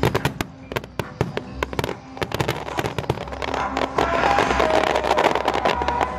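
Fireworks crackling in a dense, rapid run of sharp pops, over music that swells from about halfway through.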